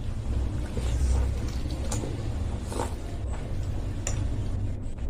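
Close-miked eating of bakso meatball soup: chewing and slurping over a steady low rumble, with a few light clicks of a spoon against the bowl.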